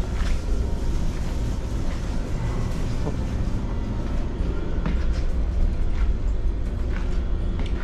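Steady low rumble aboard the car ferry Sunflower Satsuma under way, with a few faint knocks.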